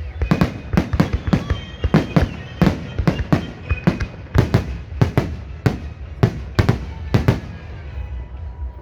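Fireworks salute shells bursting in quick, irregular succession, about two to three sharp bangs a second, stopping about a second before the end.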